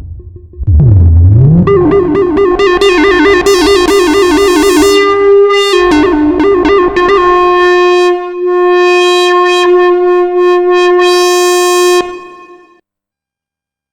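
Arturia MiniBrute 2 analog synthesizer playing a single monophonic lead line: a low swoop that glides up in pitch, then a bright held note with vibrato, a step down in pitch near six seconds in, and a steady held note that stops about twelve seconds in with a short fade.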